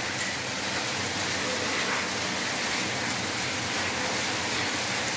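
Steady rain falling and splashing onto a wet concrete floor, an even hiss.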